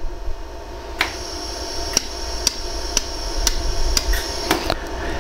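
Pulsed laser welder firing on a 14K yellow gold ring seam: a run of sharp ticks, one per laser pulse, about two a second from about a second in, with a faint high whine under them. Each tick is a weld spot going into the joint while a core weld is built up.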